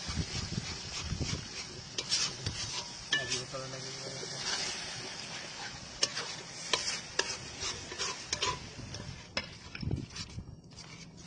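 Long-handled metal spatula stirring and scraping tomato masala around a large metal pan, with repeated clicks of the spatula against the pan. Under it the masala sizzles steadily, thinning near the end.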